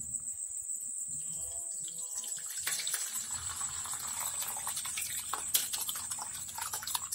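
Split milk, soft curds and whey, poured from a steel pot through a cotton cloth into a bowl, the liquid splashing and gurgling steadily: straining the chhena from the whey. The pour grows fuller and louder about three seconds in.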